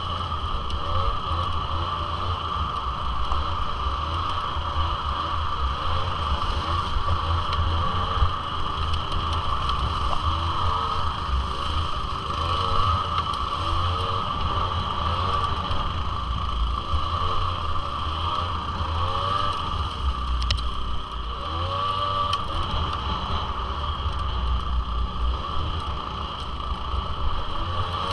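1996 Suzuki LT80 quad's small two-stroke single-cylinder engine running while riding, its pitch rising and falling every second or two as the throttle is worked, over a steady low rumble.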